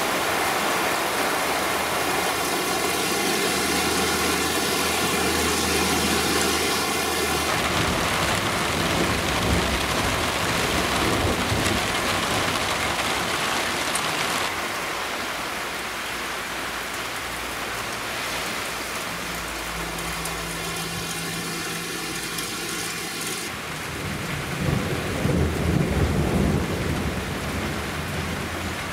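Cloudburst: heavy rain pouring down steadily, with a low rumble of thunder about three-quarters of the way through.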